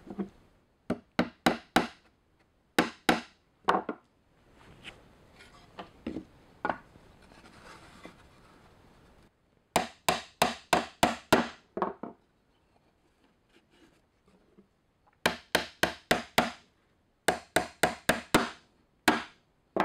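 Claw hammer driving nails into cedar fence board: several runs of quick sharp blows, about three or four a second, with quieter handling of the boards between runs.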